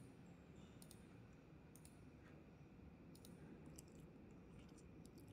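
Several faint, sharp computer mouse clicks, spaced irregularly, over near-silent room tone.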